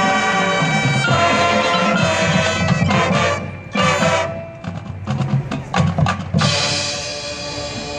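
Marching band playing loud held chords, breaking off about three seconds in for a run of sharp drum and percussion hits, then the full band coming back in on a held chord near the end.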